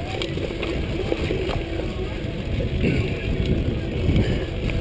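Mountain bike rolling fast over dirt singletrack, heard from a chest-mounted camera: a steady low rumble of tyres and wind on the microphone, with scattered clicks and knocks of the bike rattling over bumps.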